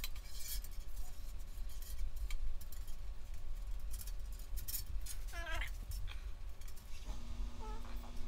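A hand tool scraping and brushing in quick, irregular strokes along the steel VW Beetle front beam. Two short, wavering squeals come in, one about five and a half seconds in and a fainter one near the end.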